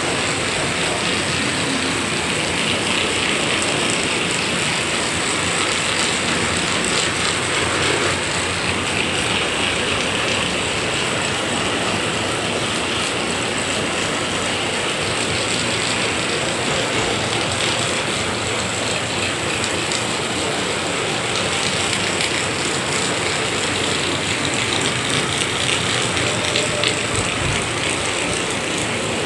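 Heavy rain falling steadily, a dense, even patter of drops with no let-up.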